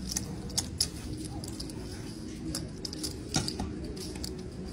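Scattered sharp clicks of clay poker chips being handled and riffled, over the steady murmur of a busy card room.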